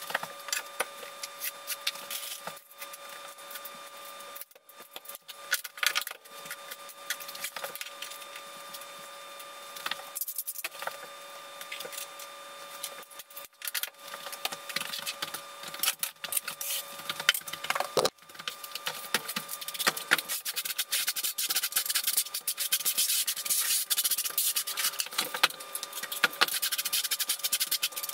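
Fast-forwarded sounds of floor tiling: a rapid, uneven stream of scraping and rubbing with scattered clicks and knocks as tiles and plastic levelling clips are handled. Near the end it becomes denser, continuous scraping as a trowel spreads thinset over the uncoupling mat. A faint steady tone runs underneath.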